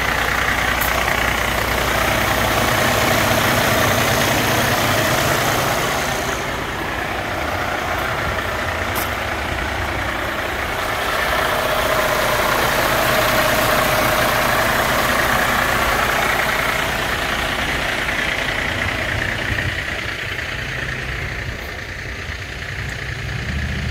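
Diesel engine of a Freightliner 122SD dump truck idling steadily, its level dipping slightly a couple of times.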